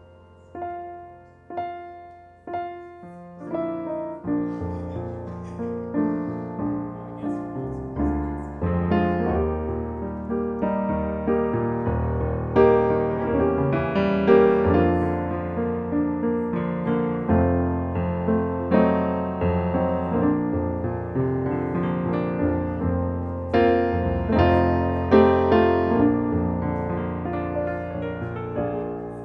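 Piano playing solo: a few light single notes at first, then fuller chords over a steady bass line from about four seconds in.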